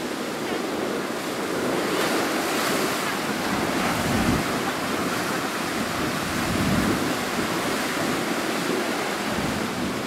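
Heavy surf breaking and washing over shoreline rocks in strong onshore wind, surging and falling in waves, with wind buffeting the microphone.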